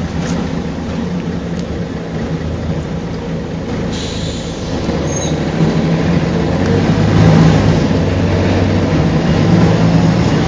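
Mercedes-Benz O405GN articulated city bus running: a steady diesel engine drone with rumble and rattle, growing louder about halfway through as the engine works harder.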